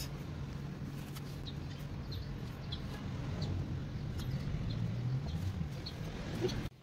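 Steady low background rumble with faint, short high bird chirps every second or so.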